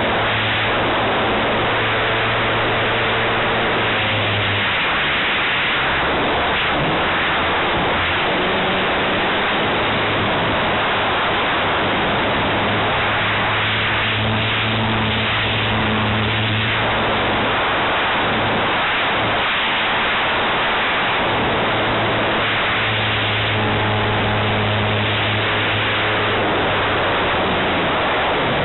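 Loud wind rush and propeller noise picked up by a camera riding on a 78-inch Extra aerobatic RC plane in flight. Under it the plane's motor note holds steady for stretches, then drops and comes back several times as the throttle changes through the manoeuvres.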